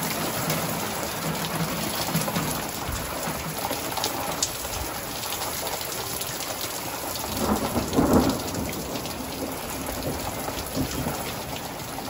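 Rain falling steadily, with thunder rumbling and a louder peal swelling and peaking about eight seconds in.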